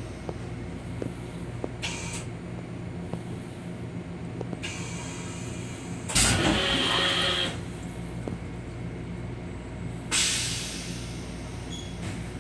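Metro-North M7 railcar running, heard from inside its restroom: a steady hum from the moving car, with brief hisses of air and a louder rushing burst about six seconds in.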